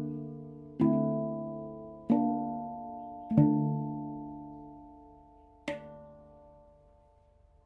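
Two stainless-steel handpans in D minor struck slowly in a few closing notes, each note ringing on with a long sustain. The loudest strike comes about three and a half seconds in, a short sharp tap follows near six seconds, and the ringing then fades away.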